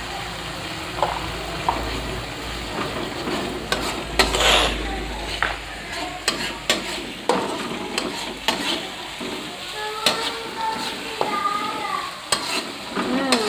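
Spice paste frying in oil in a pan, with a steady sizzle, while a spatula stirs it and repeatedly scrapes and knocks against the pan.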